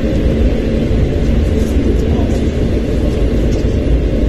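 Steady rumble of a passenger train running along the track, heard from inside the carriage: wheels on the rails and running gear.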